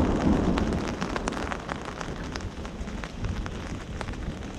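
Rain falling hard during a thunderstorm, with many close drops ticking sharply on a surface. A thunder rumble dies away over the first second, and a fresh loud peal of thunder breaks in right at the end.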